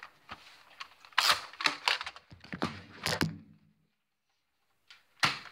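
A series of sharp knocks and clicks spread over about three seconds, then a stretch of dead silence, then one more knock near the end.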